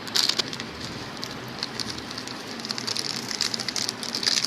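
Boiled chana dal and boiled meat being mixed with spices in a bowl: a steady scratchy crackle of many small clicks and squelches, growing louder near the end.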